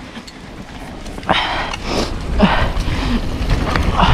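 Mountain bike riding down a dirt trail: low rumbling wind and tyre noise on the camera microphone that grows louder after about a second, with three short hissing bursts about a second apart.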